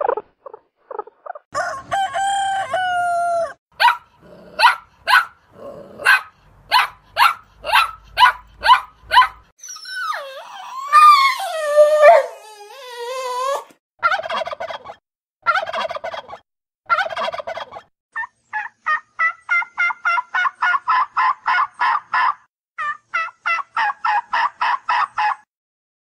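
A string of different animal calls, one after another: a held pitched call, a run of sharp calls about two a second, a loud call sliding down in pitch, then fast rattling trills of many short notes.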